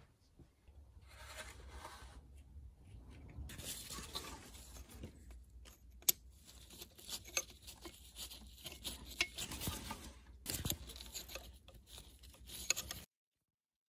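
Scraping, rustling and sharp clicks of hand tools and parts being handled during work on a car engine. The sound cuts off abruptly about a second before the end.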